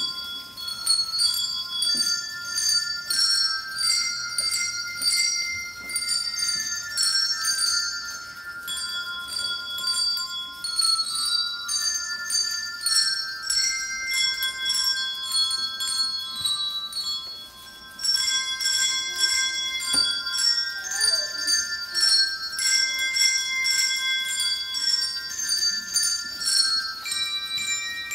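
Small handbells rung one note at a time by a group of children, playing a simple tune in high ringing tones. The notes break off briefly about seventeen seconds in, then carry on.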